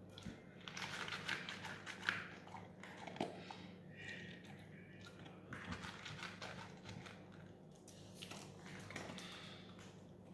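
A chow chow crunching dry kibble from a plate, in bursts of crisp cracking bites with short pauses between, the loudest about two seconds in.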